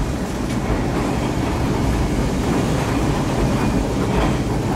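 Hiroden 100-type tram car 101 running along its line, heard from inside the old wooden-bodied car: a steady, low rumble of the car in motion on the rails.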